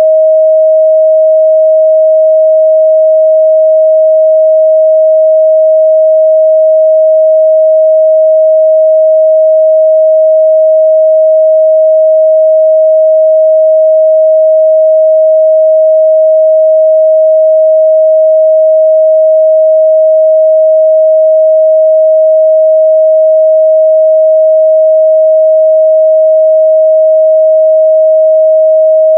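A pure 631 Hz sine-wave test tone, held steady and loud with no change in pitch or level.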